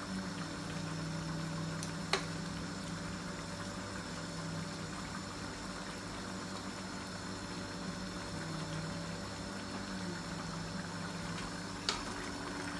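Prawn stir-fry sauce and noodles simmering in a pan on a gas stove, a steady bubbling over a low steady hum. Two sharp clicks come about two seconds in and near the end.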